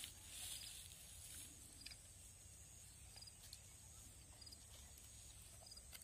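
Near silence: faint outdoor ambience with a steady high hiss and small triple chirps repeating a little more than a second apart, over a low rumble.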